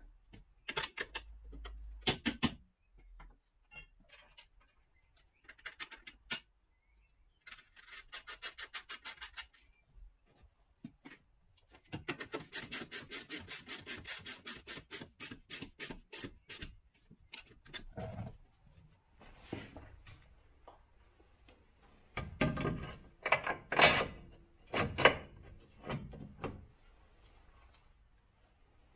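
Hand tools working on car rear suspension parts: bursts of fast, evenly spaced clicking, the longest about halfway through, then several loud knocks a little later.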